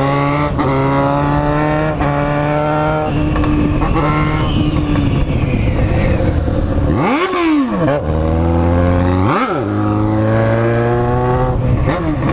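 Yamaha XJ6's inline-four engine, run with only the bare pipe and no muffler, accelerating and shifting up through the gears, its pitch climbing and dropping back at each shift. Partway through the revs flare up and fall twice in quick succession before the engine pulls away again.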